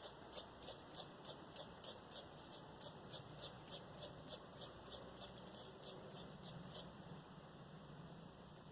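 A small brush scrubbing carbon deposits off a used spark plug, faint quick scratchy strokes at about three a second that stop near the end.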